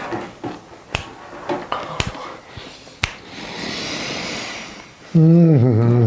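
Four sharp clicks about a second apart and a soft hiss. About five seconds in, a man starts a loud, low hum, its pitch wavering.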